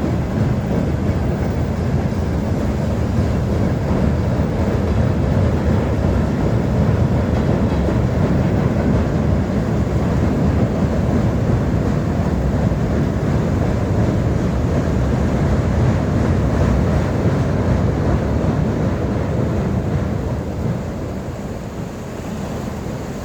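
Steady rumble of a train running on the rails, mixed with the rush of water released through a hydroelectric dam's spillway. The rumble eases and drops in level about 20 seconds in.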